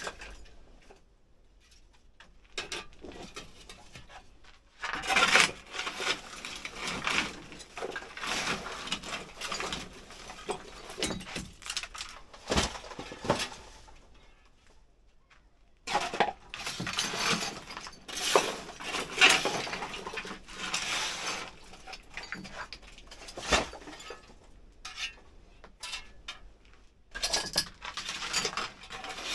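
Irregular clattering and clinking of hard household items, pots, tins and other metal and glass objects, being handled and moved about while clearing out clutter, with a brief lull a little before the middle.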